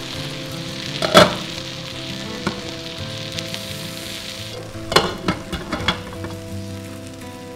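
A pot of rice boiling hard on an electric stove, with steady bubbling and hissing. A metal utensil knocks against the pot about a second in; about five seconds in the glass lid goes back on with a few clinks and the bubbling turns muffled.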